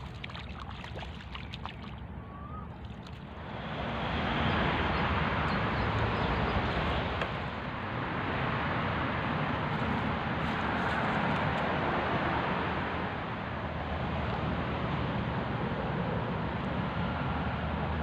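A loud, steady rushing noise swells in about three and a half seconds in and holds, over a few faint bird chirps at the start.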